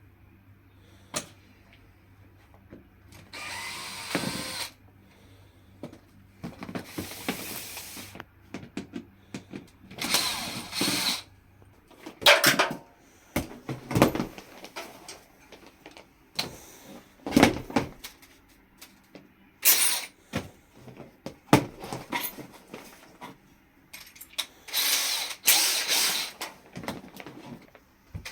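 Power drill running in repeated short bursts of a second or two, with clicks and knocks between them.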